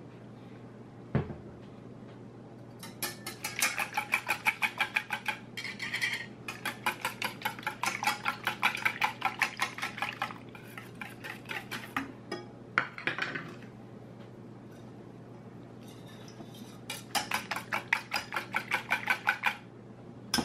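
Wire balloon whisk beating a thin mix of eggs, milk and cooking oil in a stainless steel mixing bowl: rapid, rhythmic clinking strokes of the wires against the bowl in three bouts with short pauses between. A single sharp knock comes about a second in.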